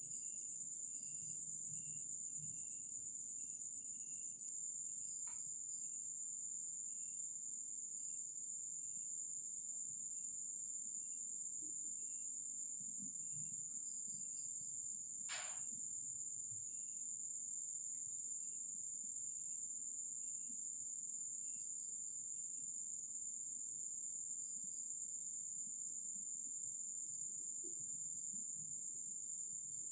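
Night insects trilling: one continuous high-pitched trill, with a second, lower chirp repeating about once a second until about two-thirds of the way through. A single sharp click sounds about halfway through.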